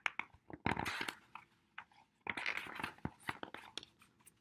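Paper rustling and soft knocks as the pages of a picture book are turned and the book is handled, in two short bursts.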